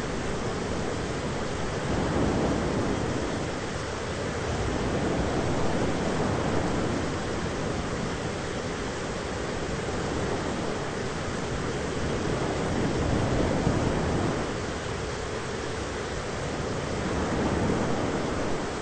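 Thunderstorm ambience: a steady deep rushing rumble that swells and fades every few seconds, with no sharp thunderclaps.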